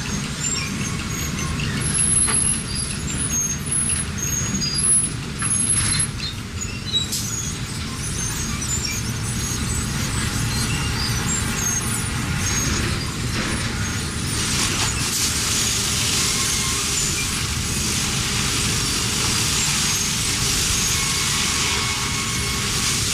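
Heavy machinery running steadily with a low rumble, with scattered metallic clicks and squeaks in the first several seconds and a long hiss setting in past the middle.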